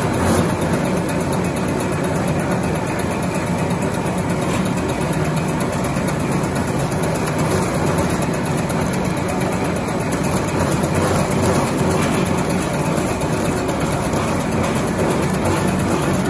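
Snack-food extruder and stick-cutting machinery running steadily, a continuous even mechanical noise.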